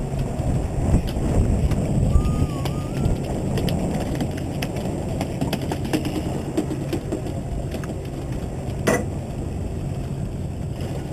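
Steady low hum and rush on a sportfishing boat's deck: the boat's engine under wind noise on the microphone, with scattered light clicks and one sharp knock near the end.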